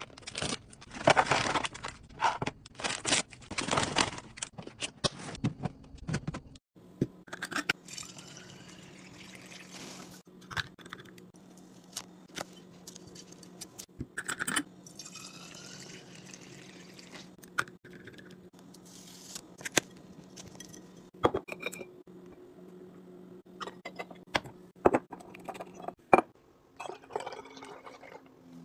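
Hands handling plastic organiser bins and glass bottles: a run of clicks, clinks and rustles, dense for the first six seconds and sparse after. A steady low hum joins from about six seconds in, and near the end liquid is poured through a funnel into a glass bottle.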